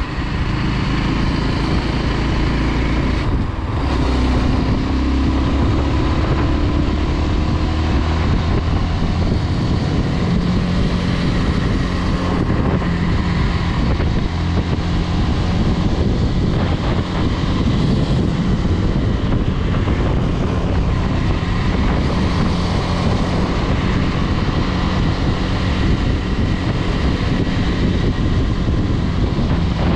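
Honda CBX 250 Twister's single-cylinder four-stroke engine running at road speed, with wind rushing over the microphone. About three and a half seconds in, the engine note dips briefly and then rises again.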